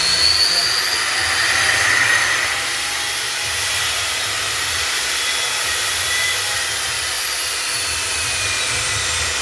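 Bosch 1974-8 angle grinder running steadily at full speed with a high whine, having just spun up; its pitch sags slightly in the second half.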